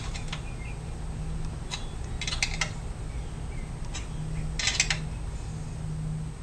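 Irregular metallic clinks and clicks from a wrench turning a nut on a bolt welded to a dirt bike's exhaust header pipe, drawing the dent out against a wooden brace. The clicks come in small clusters, the busiest between two and three seconds in and around five seconds in.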